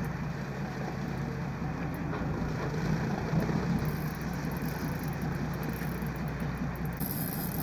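Boat engine running steadily at idle, with a constant wash of wind and sea noise over it.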